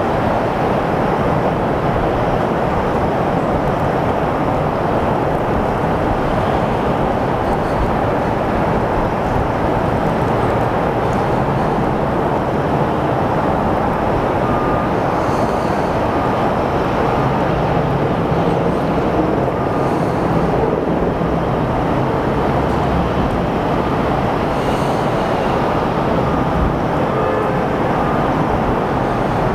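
Steady rumbling noise of a jet airliner and de-icing trucks on the apron, running without a break.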